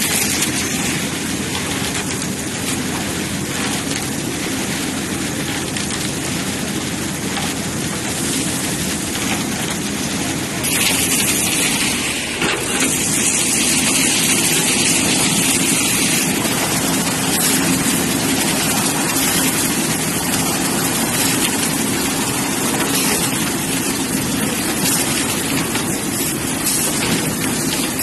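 Engine-driven concrete machinery running steadily while wet concrete slides down a corrugated metal sheet chute. The noise turns louder and hissier for a few seconds about halfway through.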